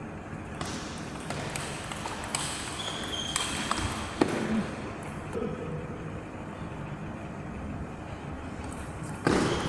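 Table tennis rally: the celluloid ball clicks sharply off the paddles and bounces on the table, a string of separate hits in the hall. A short, louder burst of noise comes near the end.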